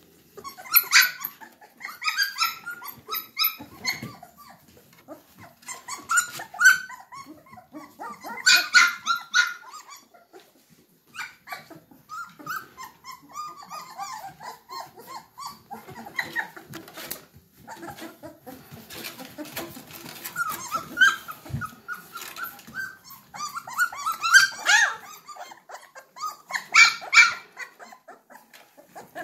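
A litter of St. Bernard puppies crying, with many short, high-pitched whines and yelps overlapping in clusters every few seconds.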